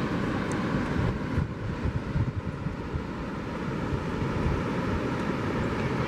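Wind buffeting the built-in microphone of a Canon PowerShot SX520 HS compact camera: an uneven, gusting low rumble over a steady outdoor hiss.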